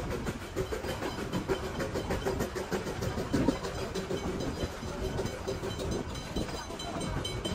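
Puffing Billy narrow-gauge steam train running: a continuous rumble and rattle with a steady hum through it.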